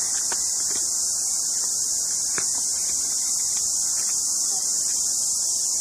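Steady, high-pitched insect chorus droning without a break, with a few faint knocks underneath.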